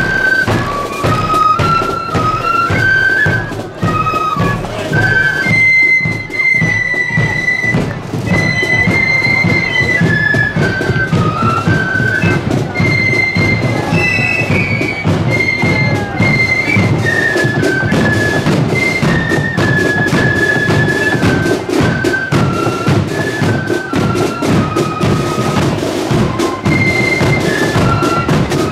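Marching flute band playing a tune: the flutes carry a high melody together over a steady beat of drums.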